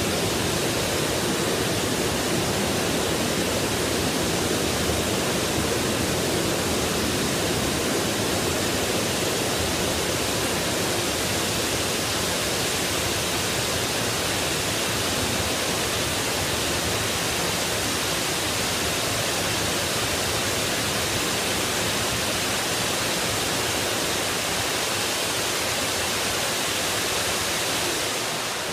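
Water pouring from a spa pool's arched cascade spouts and splashing into the pool, a steady heavy rush that begins to die away near the end.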